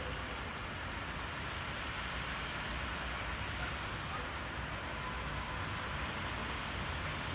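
Steady hiss of hail and rain falling, with a low rumble underneath.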